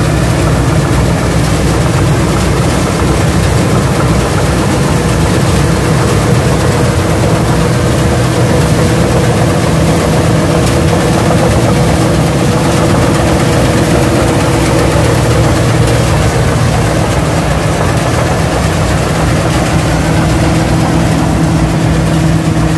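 P. Charoen Phatthana rice combine harvester running steadily under load as it harvests rice: a loud, even engine drone mixed with the noise of its working machinery.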